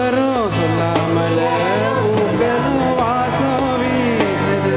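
Live band playing a Tamil film song: a gliding sung melody over keyboard chords and steady sustained bass notes.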